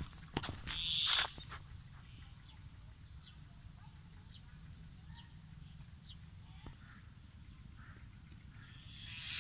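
Brush and dry leaves rustling and crackling for about the first second, then quiet outdoor ambience with a few faint short bird chirps and a faint high steady whine from about seven seconds in; rustling starts up again near the end.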